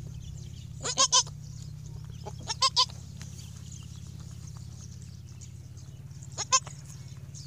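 Newborn goat kid bleating in short, high-pitched calls: a pair about a second in, another quick pair a little before three seconds, and a single bleat near the end.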